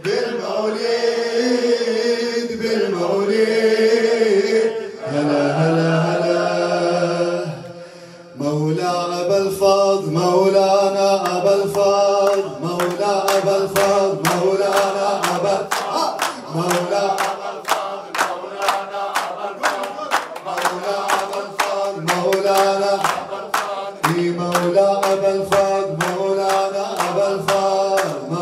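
A male radood chanting an Arabic devotional melody into a microphone. From about eight seconds in, a steady beat of sharp strikes, about two to three a second, runs under the chant.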